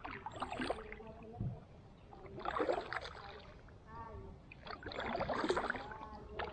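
Kayak paddle strokes: the blade dipping and pulling through the water with splashing and dripping, three strokes about two seconds apart.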